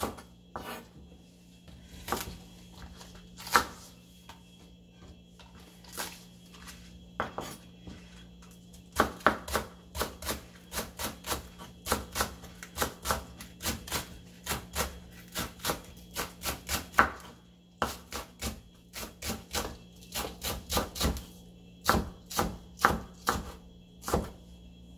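Kitchen knife chopping on a wooden cutting board, cutting a red chili pepper and then green onions: scattered knocks at first, then quick runs of cuts at about three a second.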